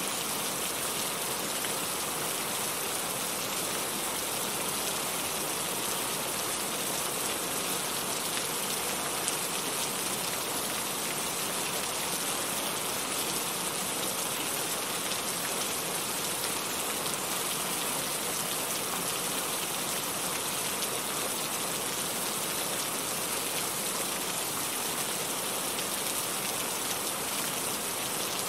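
Steady heavy rain falling and pattering on a surface, an even hiss with no let-up.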